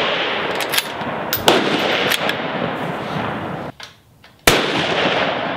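A precision rifle fires one sharp shot about four and a half seconds in, followed by a long echo. Before it, the echo of the previous shot is still dying away, with a few sharp clicks in it.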